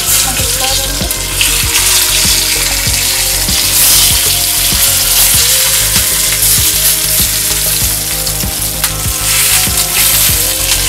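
Potato-stuffed capsicum halves sizzling in hot oil in a kadhai as they are set in one by one, a steady frying hiss with scattered crackles from the tempered spices in the oil.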